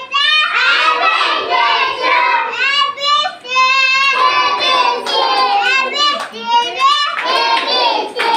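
A young boy singing a children's rhyme in a high voice, clapping his hands along; the claps come through mostly in the second half.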